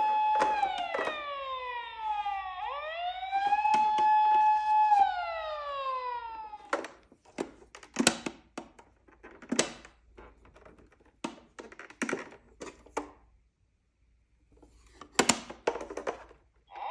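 Toy emergency vehicle's electronic siren wailing, rising, holding and falling twice, then stopping. It is followed by a scatter of sharp clicks and knocks with short quiet gaps.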